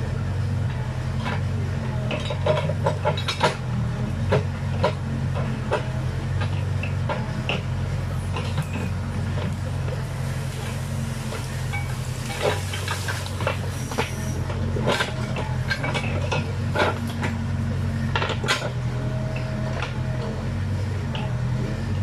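Backhoe's diesel engine running steadily while the arm and bucket work through brush. Frequent sharp metallic clanks and knocks come from the working arm and bucket, in clusters about three seconds in, around twelve to thirteen seconds in, and again a few seconds later.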